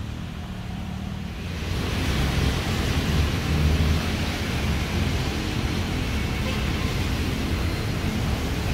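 City avenue traffic: a steady low rumble of car and bus engines with tyres hissing on the wet road, growing louder about two seconds in.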